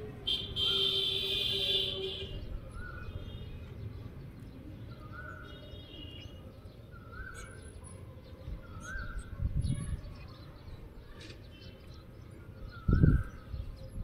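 A bird calling over and over outdoors, a short chirped note every second or two. Near the start a louder high-pitched sound runs for about a second and a half, and near the end there is a low thump.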